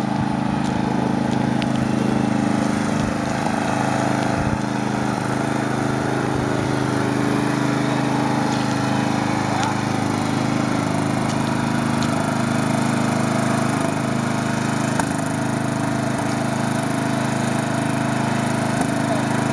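Riding lawn mower's small engine running steadily at an even speed.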